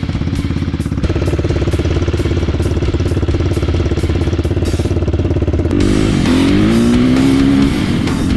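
Dirt bike engine idling with a fast, even throb, then revving up as the bike pulls away about six seconds in.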